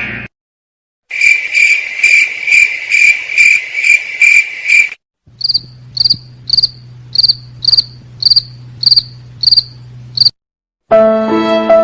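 Cricket chirping sound effect, two clips: first a run of evenly spaced chirps about two to three a second, then after a short gap a higher-pitched chirping at about two a second over a low steady hum. Music begins near the end.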